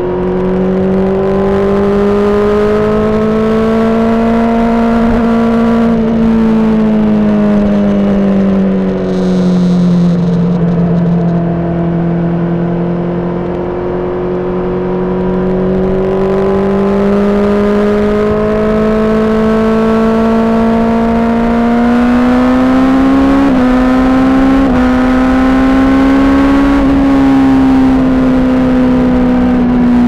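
Honda CBR600RR's inline-four engine, breathing through an aftermarket Toce exhaust, running steadily under riding load. Its note rises and falls slowly with engine speed, with a couple of quick pitch steps about three-quarters of the way through.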